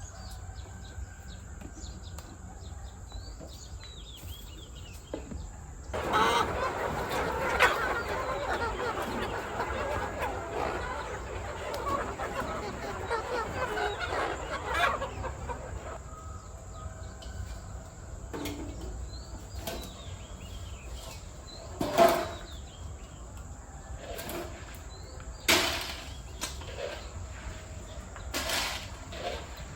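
A flock of chickens clucking, busiest and loudest for about ten seconds from around six seconds in, with a few sharp knocks later on, the loudest about two-thirds of the way through.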